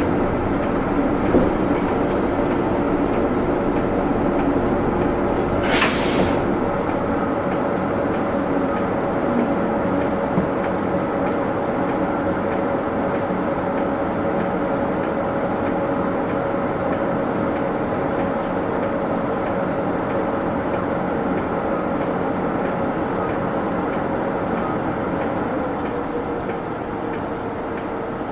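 Kyoto City Bus in motion, heard from inside: its engine and drivetrain run with a steady hum under road noise. A short hiss comes about six seconds in, and the engine note drops slightly near the end.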